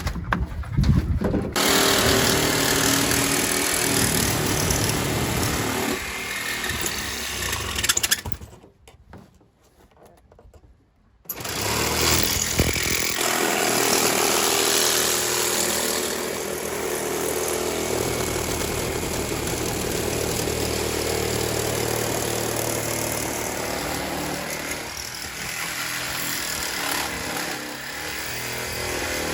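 A power saw cutting out the camper's top bunk. It runs steadily, stops for about three seconds, then starts again and runs on.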